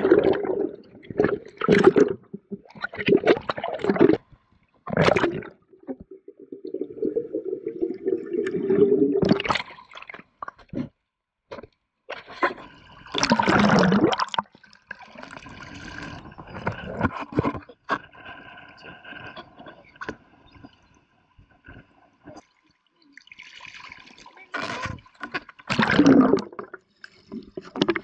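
Water sloshing and gurgling in irregular surges around an underwater camera as a shrimp net is pushed through shallow sea water over a sandy bottom.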